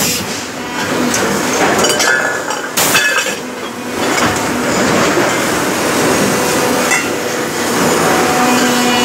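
Metal-forming press shaping a sheet-metal handi pot: a loud, steady machine-shop din with metal clinks, and a brief sharp hiss about three seconds in.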